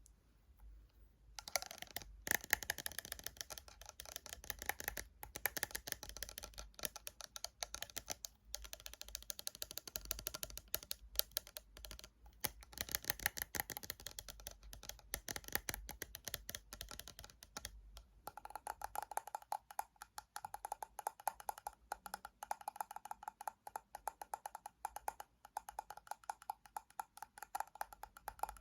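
Rapid fingernail tapping on hard plastic and glass objects, a dense run of quick clicks. About two-thirds of the way through, the taps start to ring with a clear tone.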